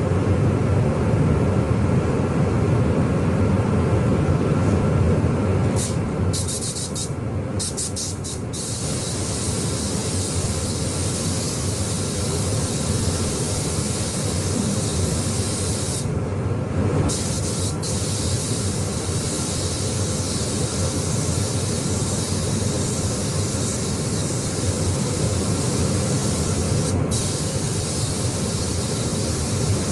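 Paint spray gun hissing as automotive paint is sprayed, the hiss stopping briefly a few times as the trigger is let off, over a steady low rumble.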